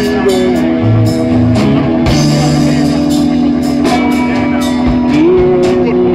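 Rock band playing live through a stage PA: electric guitars and keyboard holding steady notes over drum hits, with one note sliding up near the end.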